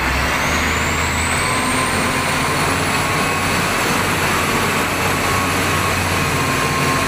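XCMG wheel loader's diesel engine running as the machine drives: a steady noisy drone with a low hum, and a thin high whine that rises in pitch over the first second or two and then holds.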